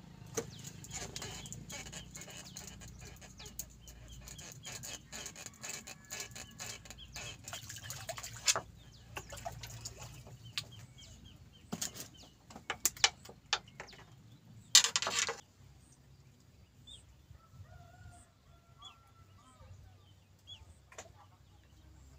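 Fishing rod and reel being handled and wound in: a run of irregular clicks and rattles, with a short loud noisy burst about fifteen seconds in as a small fish comes out of the water. Faint bird calls follow.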